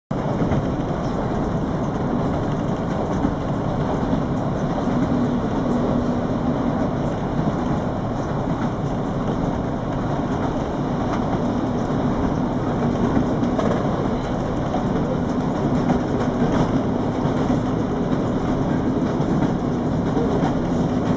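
A passenger train running along at speed, heard from inside the carriage: a steady low rumble with a few faint scattered clicks.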